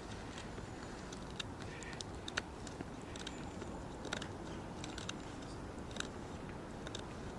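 Knife carving a notch into a wooden tent peg: irregular small cracks and scrapes of the blade biting into the wood, the sharpest about two and a half seconds in.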